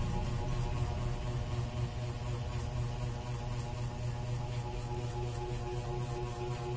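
A steady low hum with faint overtones.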